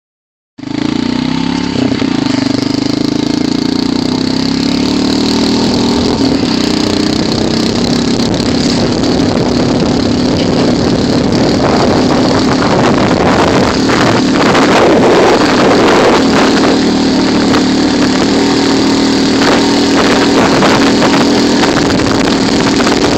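Engine of a vehicle towing a sled, running steadily with small shifts in pitch. It starts about half a second in.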